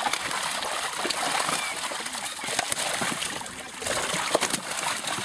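Farmed fish thrashing and splashing in a drawn net in shallow pond water, with many quick wet slaps as hands work through the catch.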